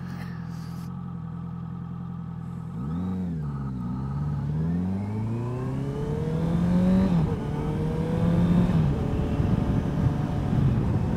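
Honda CBR650F's inline-four engine idling steadily, then revving and pulling away, its pitch climbing and dropping suddenly at an upshift about seven seconds in and again near nine seconds. Wind and road noise build as the bike gathers speed.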